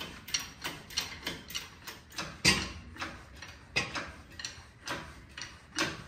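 Hand ratchet wrench worked in steady strokes, clicking about three times a second, with one louder metal clack about two and a half seconds in.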